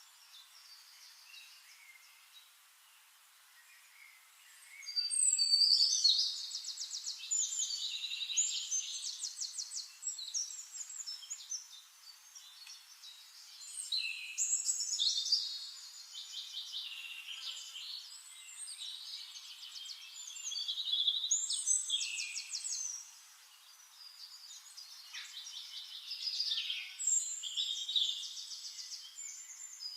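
Songbird song: high, rapid trills and chirping notes in phrases a few seconds long, about four phrases separated by short pauses.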